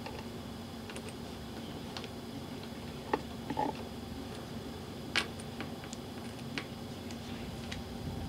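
Scattered light clicks and ticks of a metal swivel snap hook and ring being handled while a braided leather strap is fitted, the sharpest about three and five seconds in, over a faint steady hum.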